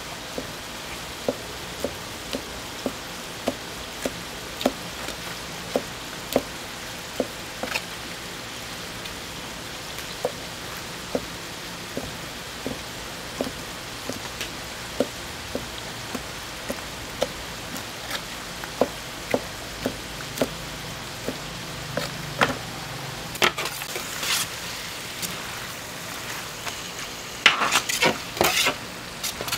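Pork sizzling on a large iron griddle. Sharp taps come about every half second, and a burst of louder clatter comes near the end.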